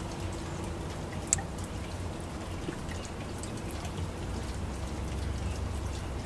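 Steady low background noise with faint scattered ticks, and one sharper click about a second and a half in.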